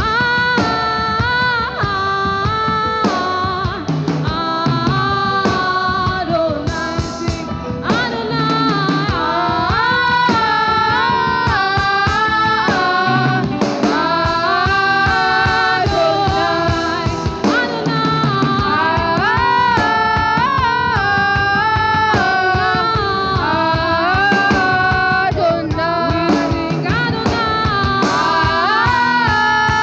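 Live worship music: singing with a band of drums and guitar playing a steady beat.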